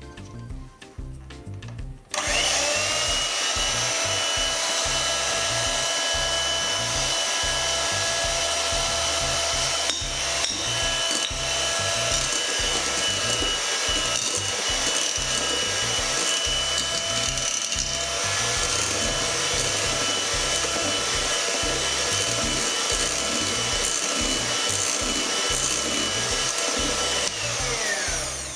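Electric mixer motor running steadily with a high whine, beating flour into whipped egg batter; it spins up about two seconds in and winds down near the end. Background music with a steady beat plays underneath.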